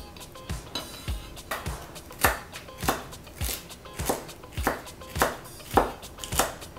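Chef's knife chopping celery stalks on a wooden cutting board, in an even rhythm of sharp knocks a little under two a second.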